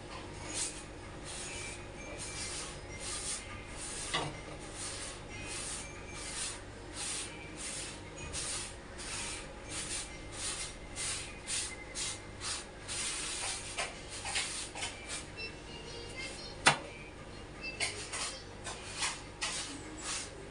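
A folded cloth rubbing and dabbing a roti on a hot tawa, about two strokes a second, pressing the flatbread to make it puff, over a steady gas-burner hiss. There is one sharp knock about three-quarters of the way through.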